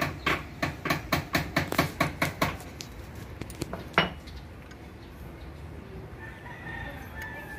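A quick run of sharp metal clicks, about five a second, for the first two and a half seconds, and one louder clack about four seconds in, from small motorcycle engine parts being handled and set down. Near the end a rooster crows in the background.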